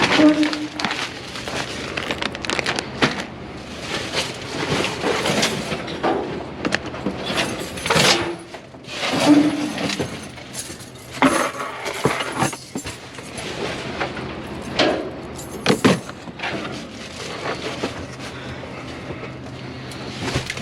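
Items being rummaged through and handled in a dumpster: irregular rustling with scattered clinks and knocks, some sharp, over a faint steady low hum.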